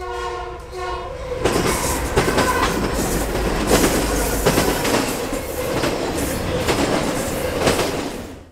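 Norfolk Southern diesel freight locomotive's air horn sounds two short blasts. Then the train passes close by, its wheels knocking over the rail joints, until the sound fades out near the end.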